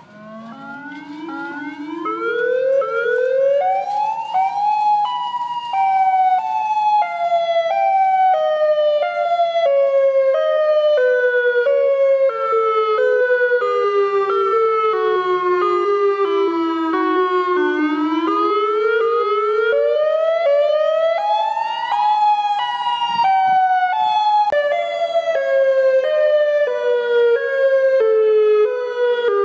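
Outdoor tornado warning siren winding up from a low growl to full pitch over about five seconds, then slowly falling. It winds up again about two-thirds of the way through and falls once more, a rising-and-falling wail, its tone pulsing in short steps as it goes.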